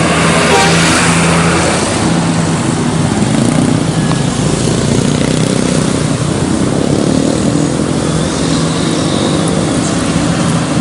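Road traffic: vehicle engines running and passing steadily, with a brief hissing rush about half a second in. No telolet horn melody is heard.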